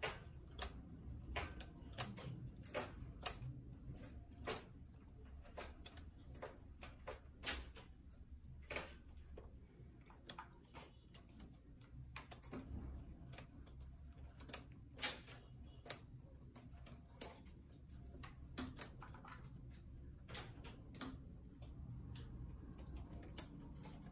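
Light, irregular metallic clicks of a knitting machine's steel latch needles as hem loops are hooked onto them by hand, about one or two a second at first and thinning out in the second half, over a low steady hum.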